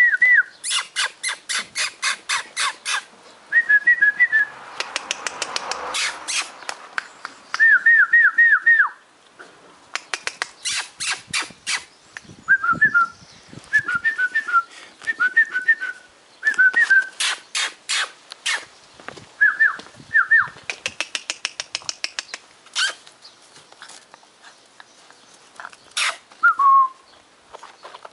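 A person whistling short, repeated rising-and-falling notes, alternating with quick runs of sharp clicks about seven or eight a second, starting and stopping in groups.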